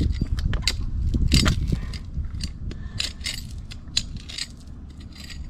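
Digging in hard, gravelly dirt to recover a coin: a run of separate scrapes and clicks as a tool and stones strike each other. A low rumble sits under the first two seconds.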